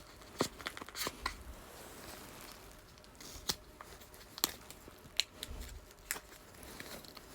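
AirPods 4 packaging being handled and opened: scattered sharp clicks and taps, about seven in all, with faint rustling between them.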